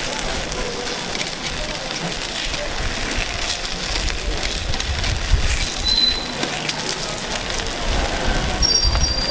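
Takoyaki batter sizzling and crackling steadily on a hot takoyaki griddle, with a couple of brief high-pitched tones near the end.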